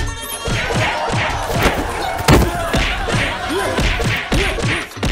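Staged fight with a quick series of punch and thud sound effects, the heaviest hit about two and a half seconds in, mixed with shouting.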